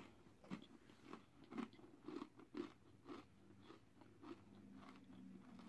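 Person chewing a crunchy oats 'n dark chocolate Nature Valley granola bar: faint crunches about twice a second, thinning out after the first few seconds.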